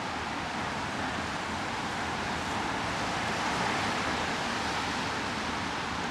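Steady hiss of rain on a wet city street, swelling a little in the middle and easing again.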